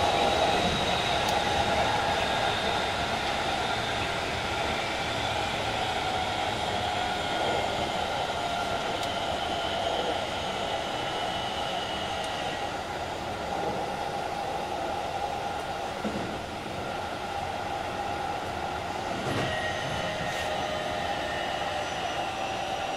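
Keikyu 2100 series electric train running, heard from inside the car: a steady rumble of wheels on the rails with the whine of the Toyo IGBT-inverter-driven traction motors, slowly getting a little quieter.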